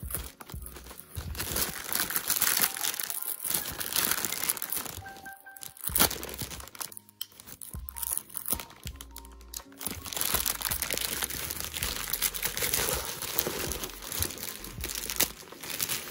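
Grey plastic mailing bag crinkling and rustling in irregular bursts as it is cut open and pulled apart by hand, with music playing underneath.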